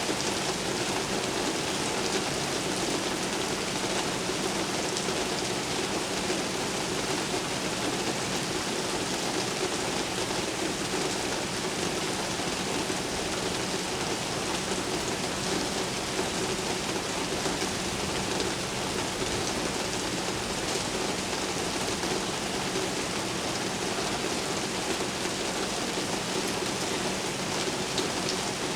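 Steady rain falling during a thunderstorm, an even hiss and patter with no thunder claps. A faint steady low hum sits underneath.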